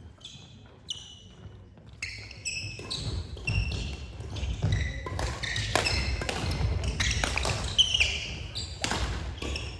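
Badminton rally on a sprung wooden sports-hall floor, starting about two seconds in. Players' shoes squeak repeatedly on the court, with sharp strikes of rackets hitting the shuttlecock.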